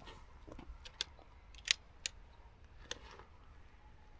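A few faint, separate clicks and taps from a rifle and its bipod being handled and settled into position.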